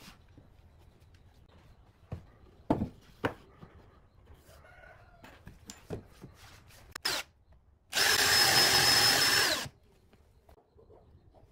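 A few sharp wooden knocks as boards are handled, then a cordless drill runs once, steadily, for just under two seconds, drilling into a wooden board.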